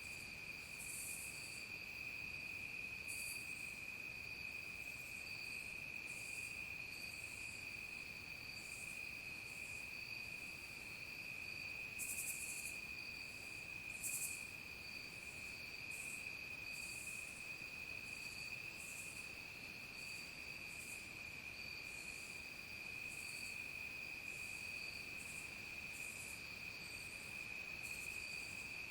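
A chorus of crickets and other insects: one steady, unbroken high trill, with short, higher-pitched buzzing calls from other insects coming irregularly about once a second.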